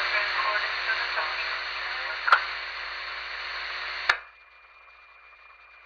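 Police radio scanner with the channel keyed open: static hiss with a faint garbled voice in the first second, a sharp click a little past two seconds in, then a squelch click as the transmission cuts off about four seconds in, leaving only a low hiss.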